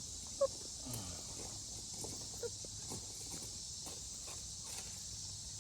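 Steady outdoor insect chorus, crickets chirring, with a few faint knocks and a short high chirp about half a second in.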